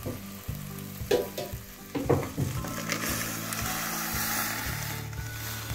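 A wooden spoon knocks against a steel pot of rice in a tomato refogado a few times. Then, from about three seconds in, boiled seafood and its hot broth are poured into the pot, hissing and sizzling as they hit the hot base.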